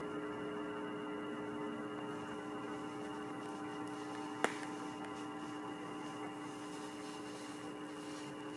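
A steady hum made of several held tones, with a single sharp click about four and a half seconds in.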